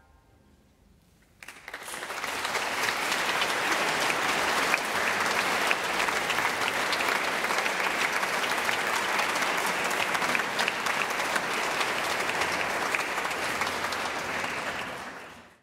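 Concert audience applauding. After a short hush, dense clapping breaks out about a second and a half in, holds steady, and fades out at the end.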